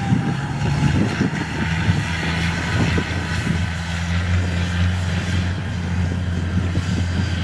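Kubota DC95 combine harvester at work in standing rice: its 95-horsepower diesel engine runs with a steady low drone, the threshing machinery rushing over it.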